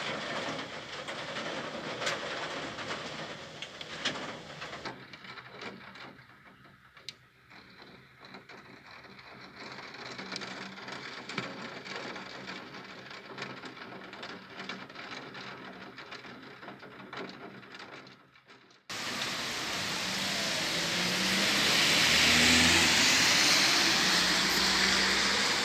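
Heavy downpour: a steady hiss of rain with fine drop ticks. About three-quarters of the way in it switches abruptly to a louder, fuller rain hiss.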